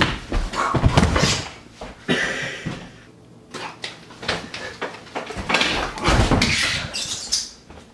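Quick footsteps, scuffs and thumps on a hardwood floor from two people tussling. They come in two loud flurries, one at the start and one in the last few seconds, with a quieter stretch between.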